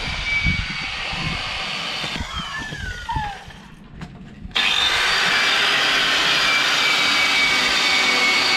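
Small electric angle grinder running with a steady high whine, working on the rusty underside of a steel hull. It winds down about two seconds in, goes quieter, then starts up again at full speed about four and a half seconds in.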